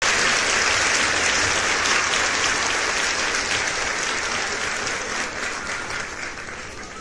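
Applause: many hands clapping in a dense crackle, starting suddenly and fading out gradually.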